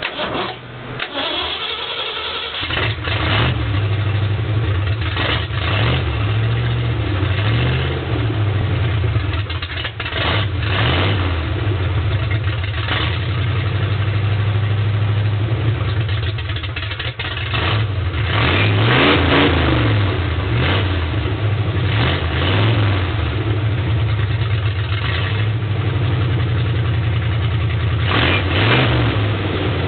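Ford F100's 289 V8 starting with the right exhaust pipe disconnected. It catches about two and a half seconds in and runs loud through the open exhaust, revved up a few times, around two-thirds of the way through and again near the end.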